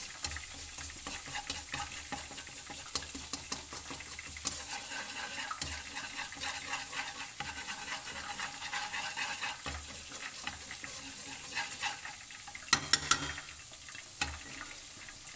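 Finely minced aromatics sizzling in a little oil in a nonstick wok, stirred with wooden chopsticks that scrape and tap against the pan. About three sharp taps close together near the end are the loudest sounds.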